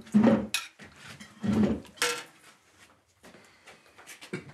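Tableware clatter at a family meal: soup bowls set down on a table and spoons knocking against plates. Several short knocks and clinks come in the first two seconds or so, then a few fainter clicks near the end.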